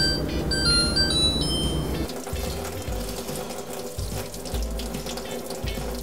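A kimchi refrigerator's touch panel gives a few short electronic beeps, changing in pitch, as its buttons are pressed. From about two seconds in, a kitchen tap runs into the sink as green onions are washed under it.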